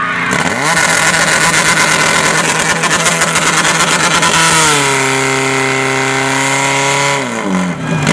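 Portable fire pump's engine running at high revs while pumping water into the attack hoses. The pitch steps down about halfway through and sinks again near the end.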